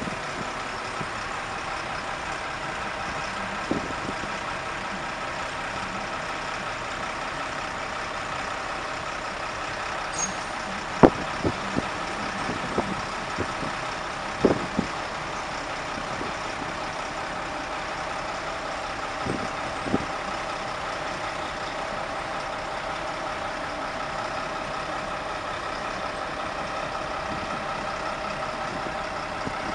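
Steady city traffic noise from a jammed, snowy street: a constant hum of idling cars and buses, with a few scattered sharp knocks, the loudest about eleven seconds in.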